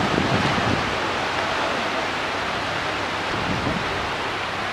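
Sea surf washing onto a sandy beach, a steady rushing noise.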